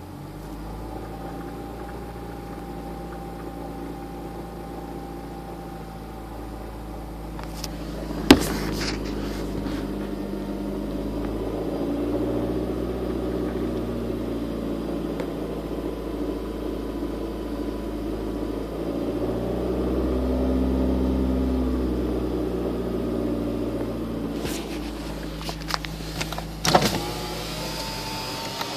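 Honda Civic engine running, rising in revs twice and settling back, with the knocking sound the video is about. A sharp click about eight seconds in and a few clicks near the end.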